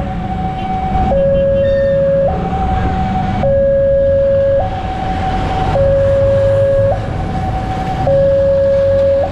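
Railway level-crossing warning alarm sounding an alternating two-tone high-low signal, each tone held about a second, the lower tone the louder. It signals an approaching train while the crossing lights flash.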